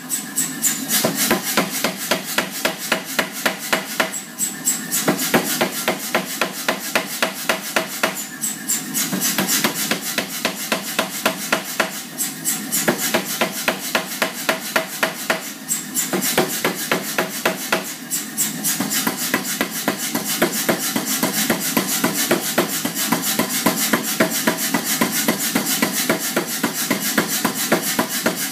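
Blacksmith's hand hammer striking hot quarter-inch round steel stock on an anvil, a steady run of about four quick, ringing blows a second, with short pauses every few seconds. The blows are drawing a shoulder into the bar by hand.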